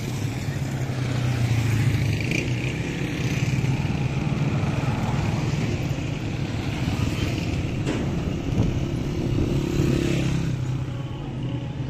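Street traffic, with small motorcycles passing close by over a steady low engine drone. The sound eases off a little near the end.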